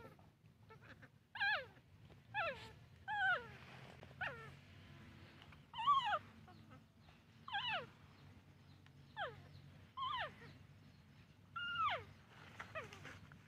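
Infant macaque calling over and over: about ten short, high calls, one every second or so, each sliding steeply down in pitch.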